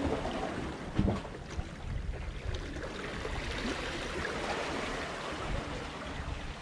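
Sea water washing and lapping against shoreline rocks, a steady rushing wash, with one louder thump about a second in.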